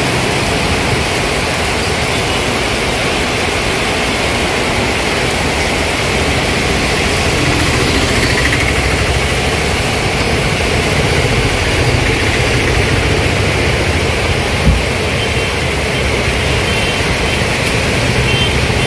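Heavy rain pouring down on a street as a steady, even rush of noise, with vehicle engines and tyres on the wet road mixed in. A single short knock sounds about three-quarters of the way through.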